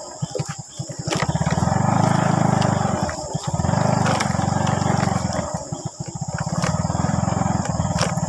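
Small motorcycle engine running as it is ridden, its note surging up and easing off every couple of seconds, with a few sharp clicks.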